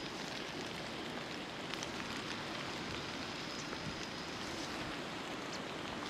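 Rain falling steadily, an even hiss with a few faint ticks.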